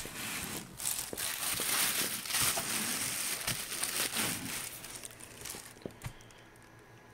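Clear plastic packaging bag crinkling as it is pulled back off the inverter, fading out about five seconds in, then a single click.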